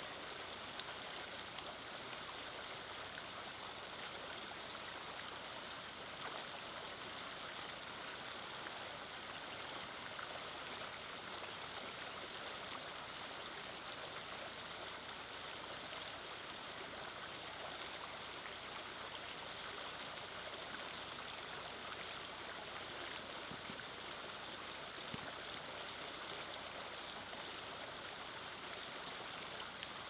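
Shallow stream running over stones and riffles: a steady, even rush of water.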